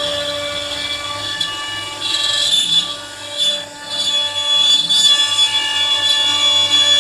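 CNC router spindle running with a steady high whine while the bit carves ash wood, with grinding cutting noise that swells and fades. The level drops briefly about three to four seconds in.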